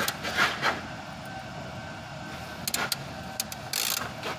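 Scattered sharp clicks and short scraping noises of hand tools working on metal, over a faint steady background hum.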